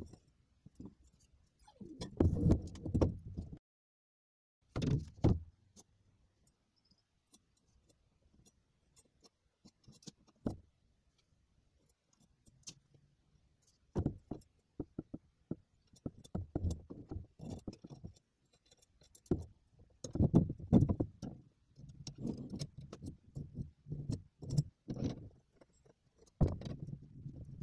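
Steel bicycle crank-axle parts (axle, bearing cups and ball-bearing retainers) being handled and fitted together on a wooden table: scattered metallic clinks, rattles and knocks in short bursts, with silent pauses between.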